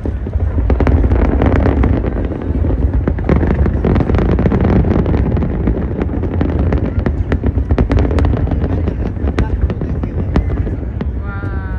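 Fireworks display going off: many sharp bangs and crackles in quick, irregular succession over a steady low rumble, with crowd voices beneath.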